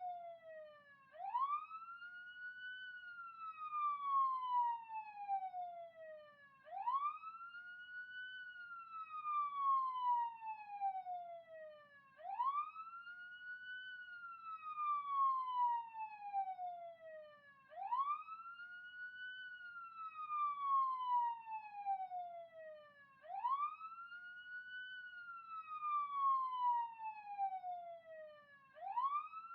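Police siren sounding a slow wail. Each cycle sweeps up quickly, then glides slowly back down, repeating about every five and a half seconds.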